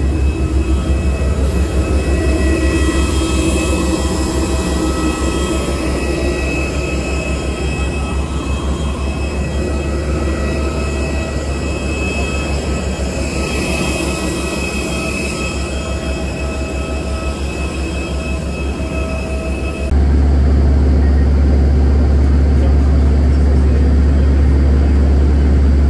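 Airport apron noise dominated by a jet airliner's turbine: a steady low rumble under a high whine made of several steady tones. About twenty seconds in it changes abruptly to a louder, deeper hum without the whine.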